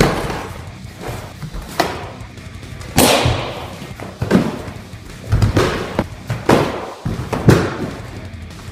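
A series of irregularly spaced thuds from karate strikes: punches and kicks landing on a handheld kick shield and on the partner's body, with a body falling to the mat near the end, over background music.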